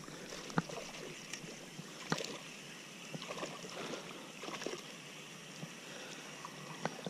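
Spinning fishing reel being handled and cranked to retrieve a lure: a couple of sharp clicks in the first few seconds, then soft, irregular reeling sounds over a faint steady hiss.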